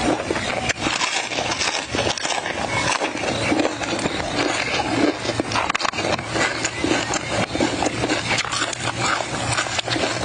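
Close-up eating sounds of raw crab in chilli sauce: chewing and crab shell and meat being pulled apart by hand, a dense run of small clicks and crunches.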